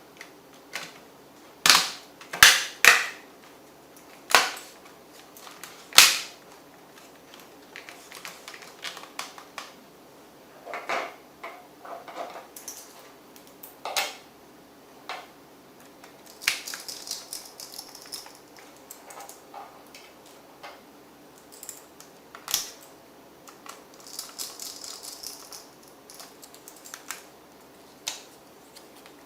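Sharp clicks and knocks of hard plastic and metal laptop parts and small tools being handled. The loudest come in a cluster of five in the first six seconds, followed by scattered lighter clicks and two brief scraping rustles.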